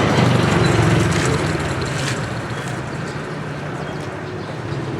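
Motor vehicle engine running close by in street traffic, loudest in the first second or so and then easing off slightly.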